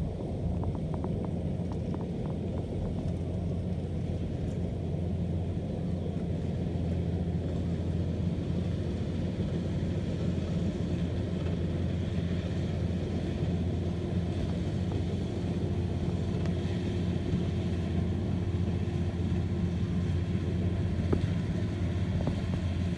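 Rice combine harvester's diesel engine running steadily at a constant speed, a low even drone.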